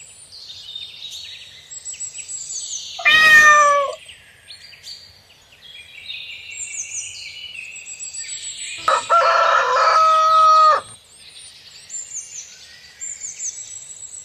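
Rooster crowing twice: a short falling crow about three seconds in and a longer, held crow about nine seconds in, over steady chirping of small songbirds.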